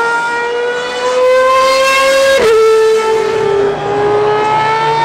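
Ferrari Formula 1 car engine at high revs, pitch climbing as it accelerates. One sharp upshift about two and a half seconds in drops the pitch, which builds again near the end.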